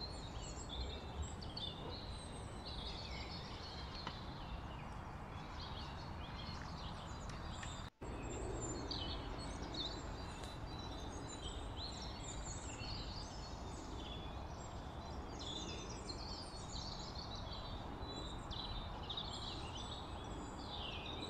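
Birds chirping and twittering over a steady background hiss, with a brief dropout about eight seconds in.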